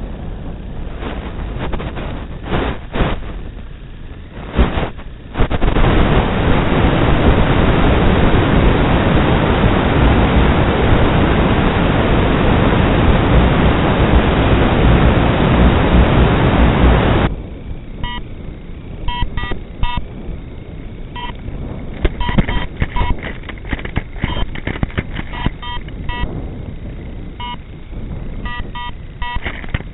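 Audio carried over an analog FPV video link: crackling noise, then a loud steady hiss of static for about twelve seconds that cuts off suddenly. After it come quieter crackle and short high beeps repeating at irregular intervals.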